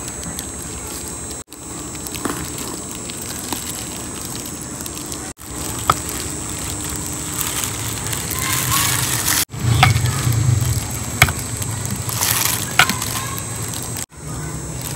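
A knife scoring a whole raw chicken in a clay bowl, with plastic-bag gloves crinkling and a few sharp clicks of the blade, over a steady background hiss. The sound drops out for an instant four times.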